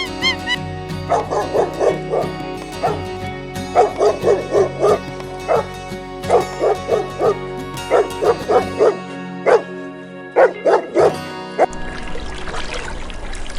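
An animal's short, high calls in quick bursts of several at a time, over background music. Near the end the calls stop and a steady rushing noise takes over.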